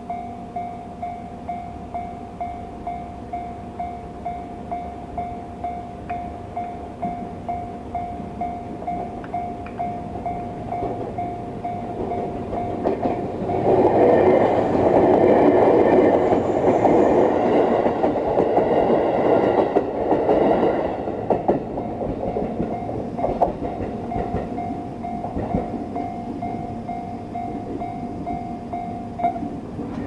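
A Japanese level-crossing warning bell, the JR standard electronic sound, rings in an even repeating tone. Roughly 13 to 21 s in, a JR 211 series electric local train passes, its wheel and rail noise covering the bell. The bell returns once the train has gone and stops near the end as the crossing clears.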